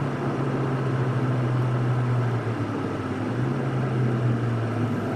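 Ford Fiesta ST's 1.6-litre turbocharged four-cylinder engine heard from inside the cabin while driving, over road and tyre noise. Its note falls over the first two seconds or so, then rises again a little past the middle.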